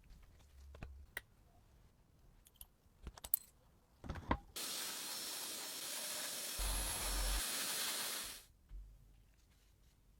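A few light clicks and knocks, then a steady hiss that starts suddenly about four and a half seconds in, lasts about three and a half seconds and fades out.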